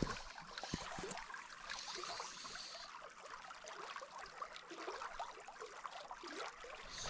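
Faint water of a small, slow creek under a soft steady hiss, with scattered light ticks and rustles.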